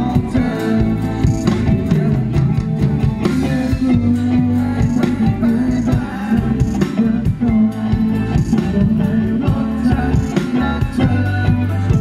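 Rock band playing live through a PA: electric guitar, bass guitar and drum kit, with a steady drum beat.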